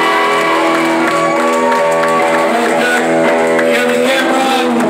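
Live hard-rock band with electric guitars playing loud, long held chords and notes.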